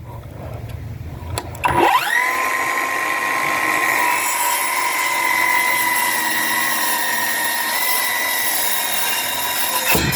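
Bauer 20-volt cordless circular saw with a framing blade spinning up about two seconds in, then running steadily with a high whine as it cuts through a treated 4x4. It begins to wind down right at the end.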